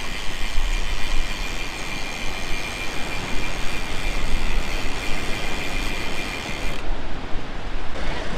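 Electric fishing reel motor whining steadily as it winds in slack line on a hooked fish, over heavy wind buffeting the microphone. The whine cuts off suddenly near the end.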